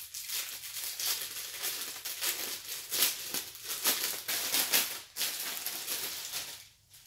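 Plastic packaging crinkling and rustling in irregular bursts as it is handled and pulled open; it stops near the end.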